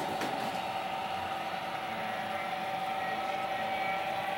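HO-scale model trains running on the layout: a steady whine from the locomotives' electric motors over the rolling noise of wheels on track, with a couple of sharp clicks at the very start.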